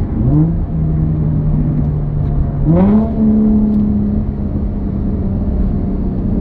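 Infiniti G35's VQ V6 engine heard from inside the cabin, its revs jumping up twice on downshifts, once right at the start and again about three seconds in, holding steady after each rise.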